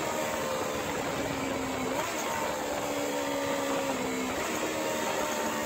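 Sport motorcycle engine running while riding, heard with wind rushing over the microphone. The engine note drifts slowly down, with a short rise about two seconds in and another rise a little past four seconds.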